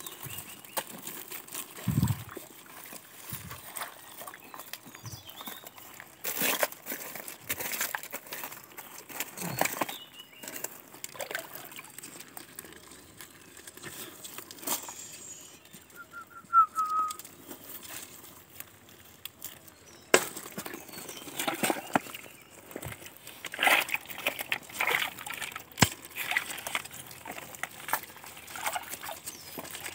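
Hands rummaging and scraping through dry leaves, loose stones and mud under a boulder while digging for crabs: irregular rustling and crackling with scattered knocks of stone and a few low thumps. The scraping grows busier and wetter in the last third, as the hands work in shallow muddy water.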